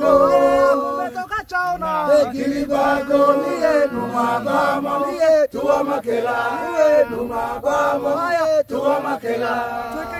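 A Hadza group chanting together, several men's and women's voices overlapping in held, gliding notes.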